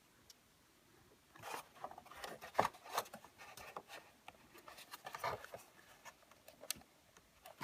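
Screwdriver and plastic console trim scraping and clicking as the auxiliary port is pried back into its opening, in short irregular scrapes with a few sharper ticks, starting about a second in.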